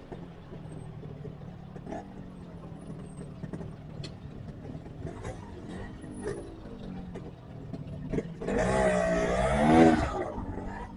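Motorcycle engine running steadily while riding in road traffic, with scattered small clicks. Near the end a louder wavering sound rises and falls for about a second and a half.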